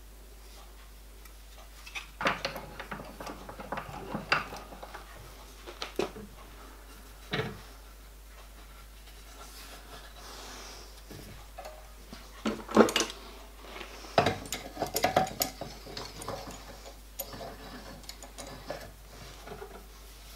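Scattered metallic clinks, knocks and rattles of hand work at a bench vice: a copper plate, its metal former and an MDF backing plate are set in the vice jaws and clamped with a screw clamp. The clatter comes in irregular handfuls with short quiet gaps, loudest and busiest about two-thirds of the way through.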